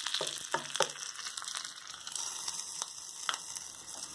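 Hot-oil tempering of cumin, dals and curry leaves sizzling steadily as it meets the ground coconut chutney. A few sharp clicks come from the spoon and pans.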